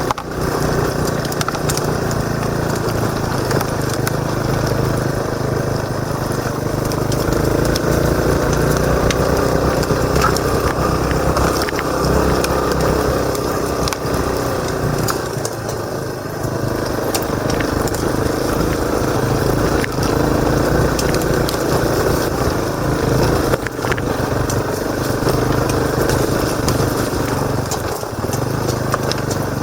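Motorcycle engine running as it is ridden, its pitch rising and falling with the throttle, heard from a camera strapped to the rider's helmet, with scattered sharp ticks and knocks over the top.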